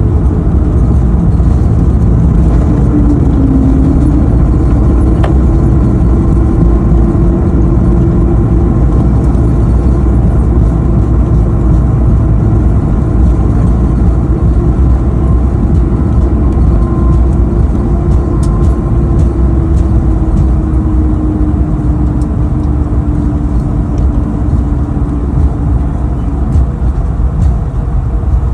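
Cabin noise aboard an Airbus A220-300: a loud, steady rumble from its Pratt & Whitney PW1500G geared turbofan engines and airflow, with a whine that slowly falls in pitch in the second half.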